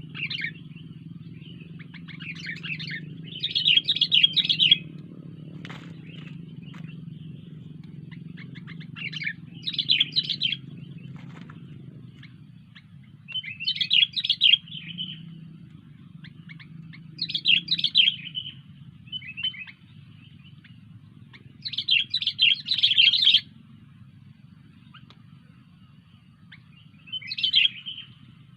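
Sooty-headed bulbul (kutilang) singing, short bursts of chattering song about every three to five seconds, over a low steady hum.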